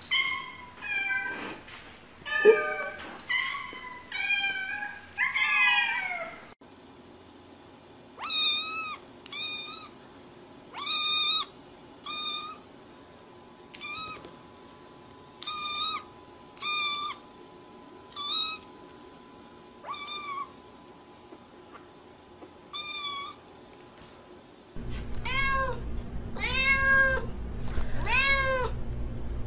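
Cats meowing over and over in three separate clips: a first run of bending meows, then a higher-pitched string of meows about one every second or so, and near the end a quicker series over a steady low hum.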